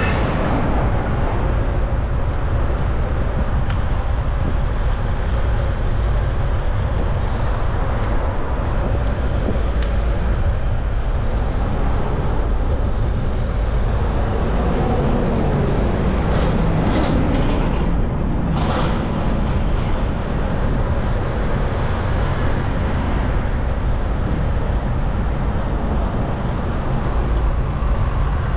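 Busy city road traffic heard from a moving bicycle: a steady mix of engines and tyres with a constant low rumble. A few short sharp noises stand out a little past the middle.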